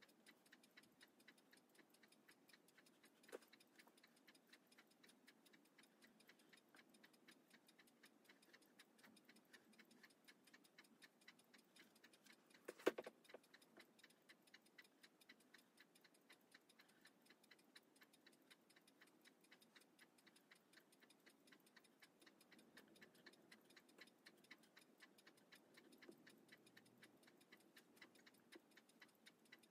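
Faint, rapid, even ticking of a running timepiece, several ticks a second, with one sharper click about thirteen seconds in.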